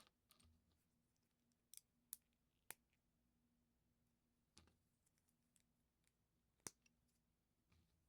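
LEGO plastic bricks being handled and pressed together: a handful of separate sharp clicks, spaced unevenly a second or two apart.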